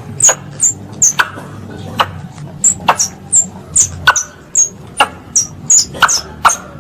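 Squirrel lure call: a steady series of short, sharp, high chirps, each falling slightly in pitch, about two to three a second, some with a harder click, over a low steady hum.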